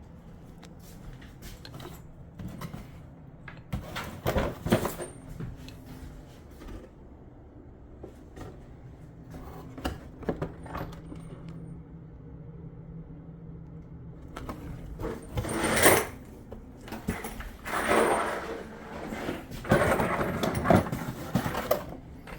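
Irregular clicks, knocks and clatter of objects being handled, with a few louder rushing, scraping stretches of a second or two in the second half.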